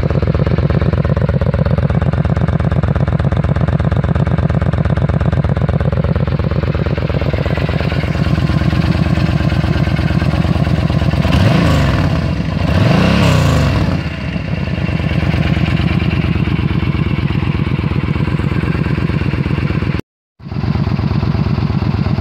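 Yamaha Stryker's 80 cubic inch V-twin idling through its stock exhaust with drilled baffles. The throttle is blipped twice about halfway through, revs rising and falling. The sound drops out for a moment near the end.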